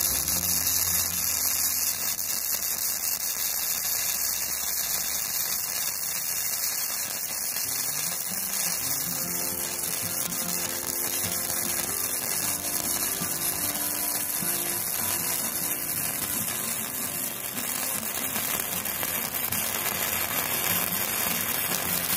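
Gasless flux-core MIG welder (Kobe MIG 235K) running a continuous weld bead on thick steel: a steady, dense crackle from the arc that stops abruptly at the very end as the torch trigger is released.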